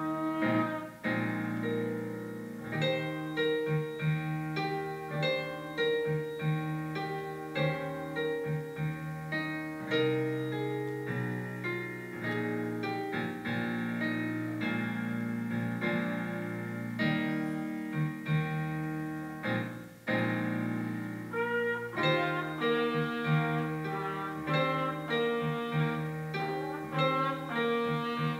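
Solo trumpet playing a classical piece with keyboard piano accompaniment. For a stretch in the middle the trumpet rests while the piano plays alone, and the trumpet comes back in before the end.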